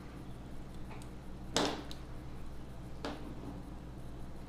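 Two light clicks, about a second and a half apart, as tabbing wire and a soldering iron are handled on a glass worktable, over a steady low hum.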